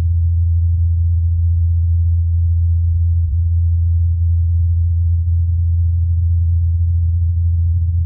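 Low, steady hum of NASA's Ingenuity Mars helicopter's spinning rotor blades, recorded on Mars by the Perseverance rover's SuperCam microphone: a single low tone with little else.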